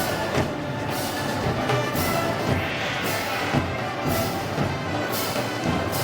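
Festival band music with drums and cymbals at a slow, heavy beat, with a cymbal crash about once a second.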